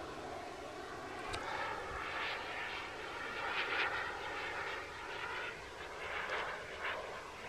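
A model airplane's motor running steadily as it flies overhead, its drone swelling and easing slightly as the plane moves about the sky.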